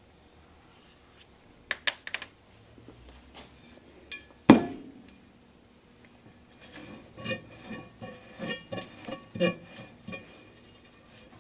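Metal clinks and knocks from a stainless steel vessel being handled on a metal worktop: a few light clicks, one loud ringing knock about halfway in, then a run of clanks with a ringing tone for several seconds near the end.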